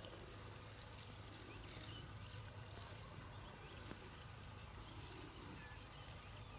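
Quiet outdoor ambience: a low steady hum under faint, scattered high chirps.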